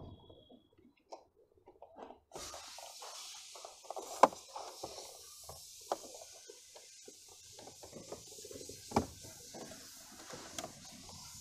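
Plastic knocks and clicks as an Android touchscreen head unit and its fascia are pressed and fitted into a car's dashboard. The loudest knock is about four seconds in and another strong one comes about nine seconds in, over a steady hiss that starts about two seconds in.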